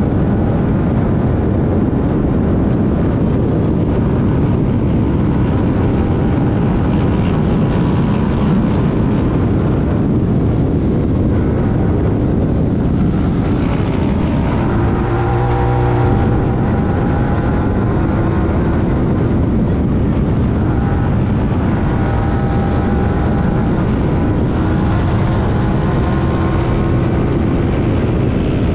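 Honda Talon 1000R's parallel-twin engine running hard at racing speed, heard from on board amid a loud, steady wash of wind and driving noise. The engine note shows through more clearly about halfway through.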